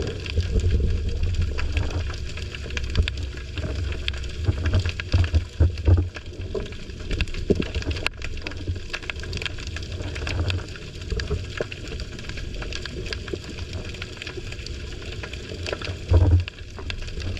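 Underwater sound through a GoPro's waterproof housing hanging against a pier piling: a low rumble of moving water with louder surges near the start, around five seconds in and near the end, over a steady crackle of small clicks.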